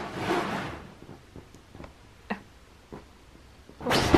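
A husky licking and nibbling at his paw, with a few soft wet clicks. About four seconds in, a sudden loud rustle of the duvet as he rolls over on it.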